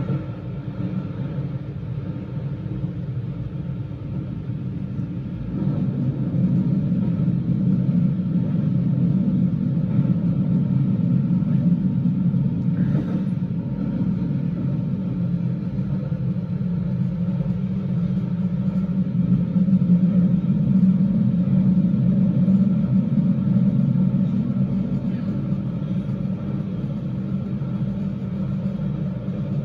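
A Keio Line electric train running through a subway tunnel, heard from inside the car: a steady low rumble of wheels on rail and traction motors. It grows louder about six seconds in and is at its loudest around twenty seconds.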